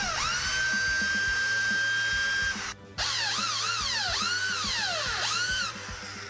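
Electric drill drilling out a broken bolt. The motor whine settles to a steady pitch, cuts off about two and a half seconds in, then starts again with its pitch rising and falling as the trigger is worked, and stops near the end.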